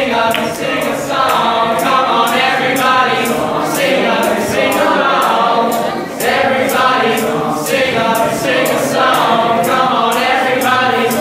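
High-school show choir singing in harmony, over a steady crisp beat of about three or four ticks a second.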